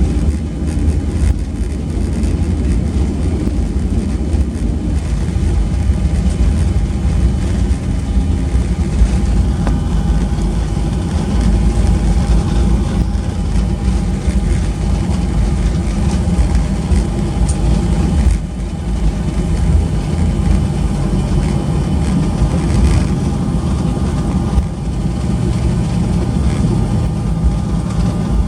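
Cabin noise of a Boeing 737-800 taxiing after landing: a steady low rumble from its CFM56 jet engines at idle and the airframe rolling on the taxiway, with a faint steady whine.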